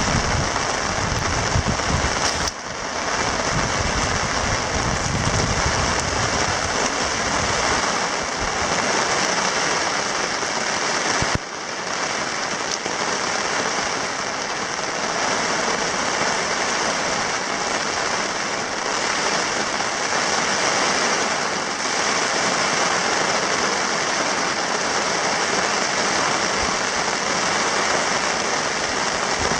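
Heavy rain from a passing storm falling steadily, a dense hiss of drops. Low wind rumble buffets the microphone in the first several seconds.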